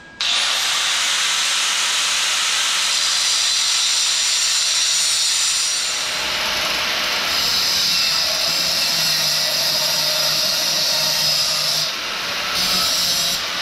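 Electric angle grinder with a cut-off blade spinning up abruptly and cutting through steel exhaust tubing, a steady high-pitched grinding hiss that changes tone about halfway as the blade bites into the pipe. It dips briefly near the end, then starts to wind down.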